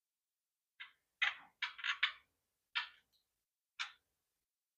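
Short, sharp clicks and clinks of hand tools and parts being handled in a car's engine bay during spark plug work: about six in irregular succession, three of them close together about two seconds in.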